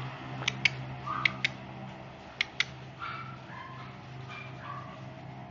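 Five-week-old shih tzu puppies giving a few short, faint, high whimpers and yips. Three pairs of sharp clicks come in the first couple of seconds, over a steady low hum.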